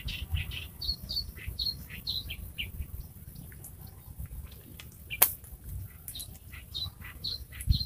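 Small birds chirping in quick runs of short, high notes, with one sharp click about five seconds in over a low rumble.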